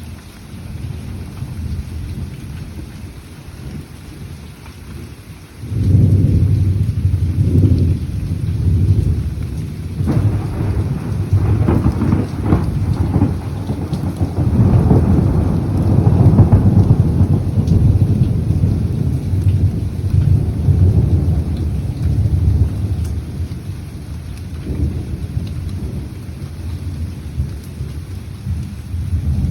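Thunder rumbling over steady rain. A low rumble builds, then jumps suddenly louder about six seconds in and rolls on for many seconds, easing off late and swelling again near the end.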